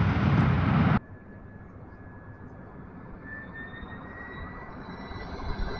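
Airbus A319-111's CFM56 jet engines: a loud rush of engine noise as the airliner rolls out after touchdown, cut off abruptly about a second in. Then the same airliner is heard distant on approach, a high engine whine that rises slightly in pitch and grows louder.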